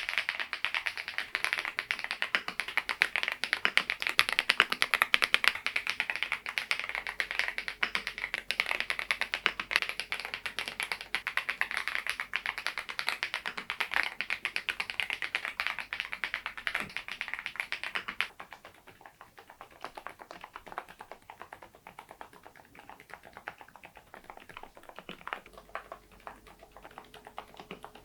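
Typing on an AULA F108 Pro V2 mechanical keyboard: a fast, dense run of key clacks, turning quieter and sparser about two-thirds of the way through.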